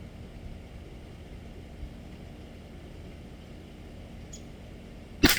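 A single .22 LR rifle shot about five seconds in, sharp and loud, followed by two or three quieter clicks. A steady low background noise runs under it.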